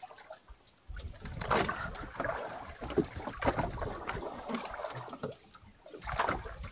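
Water splashing and sloshing against a small fishing boat, broken by scattered knocks.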